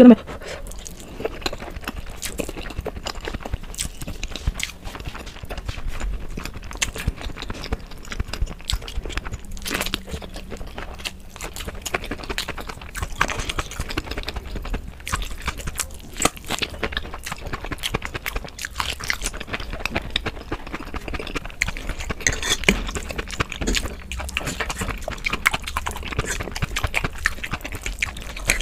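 Close-miked eating sounds: chewing mouthfuls of spicy noodles and biting into a battered cauliflower pakora, with many small mouth clicks throughout.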